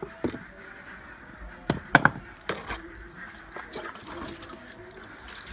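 A few sharp knocks and thuds of a black plastic basin being set down and handled on a concrete floor, the loudest pair about two seconds in.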